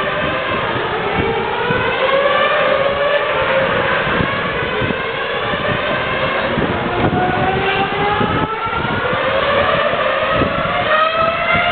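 Formula 1 cars accelerating hard down the main straight, one after another. Their engines run at a high-pitched whine that climbs through each gear, with several cars overlapping.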